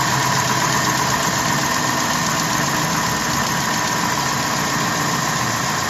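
2012 Jeep Grand Cherokee WK2's 5.7 Hemi V8 idling steadily after start-up, with the start-up ticking that the owner cannot place: a lifter, an exhaust leak or a noisy injector.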